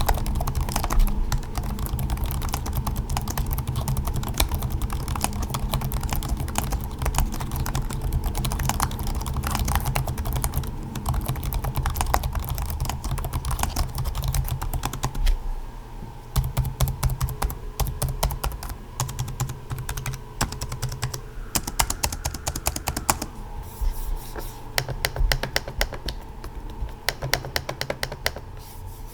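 Rapid, continuous typing on the Acer Swift X (2021) laptop keyboard, keys clicking in quick runs. A low background hum beneath the typing drops away about halfway through.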